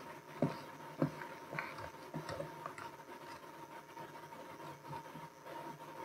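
Footsteps on a wooden gym floor: a few sharp steps at a walking pace that fade out after about three seconds, over a faint steady hum.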